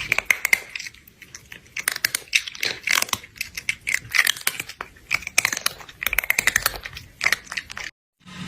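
Crunchy chewing sounds: quick, irregular clicks and crunches in clusters, stopping shortly before the end.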